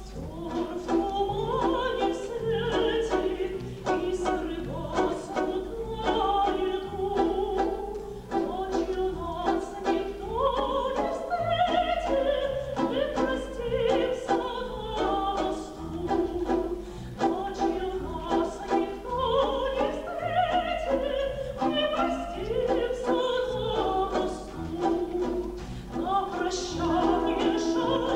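A woman singing a Russian romance in a trained, operatic voice, accompanied by a Russian folk-instrument ensemble.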